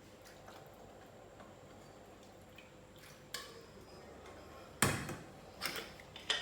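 A few knocks and clicks of kitchen utensils and dishes, the loudest about five seconds in, after a quiet start.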